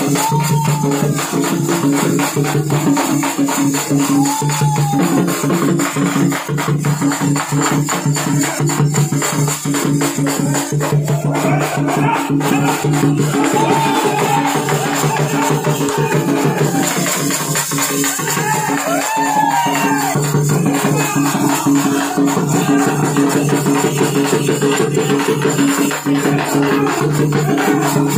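Live street band music: dense, fast percussion with a large drum, played over steady held low tones. In the middle, short up-and-down gliding notes rise above the beat.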